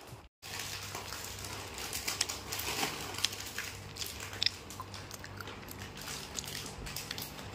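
Scattered small clicks and crinkling, the sound of something being handled or chewed, over a faint low steady hum.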